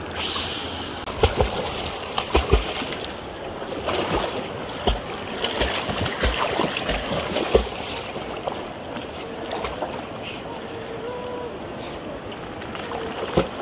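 Shallow river water rushing and splashing around dogs wading and paddling through it on leashes, with several low thumps between about one and eight seconds in.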